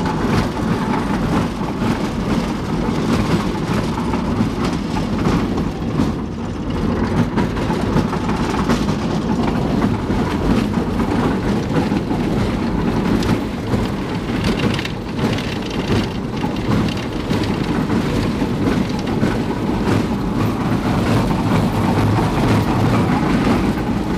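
Half-track running, a steady low rumble from its engine and running gear, with many small rattles and knocks from the tracks and hull.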